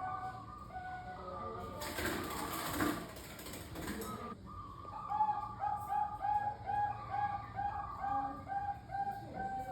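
Several zebra doves (perkutut) cooing, their short notes overlapping, then one bird running into a fast series of about three coos a second. About two seconds in, a burst of rustling noise lasts for two seconds.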